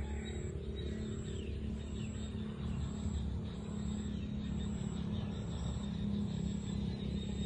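An engine running steadily, a low drone with a hum.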